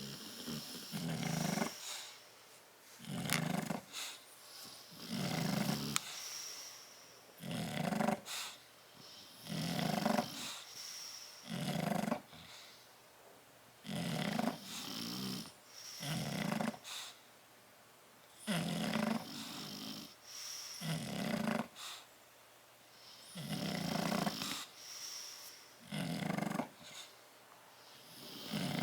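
Sleeping bulldog snoring: a rasping snore on each breath, about one every two seconds, some breaths heard in two parts.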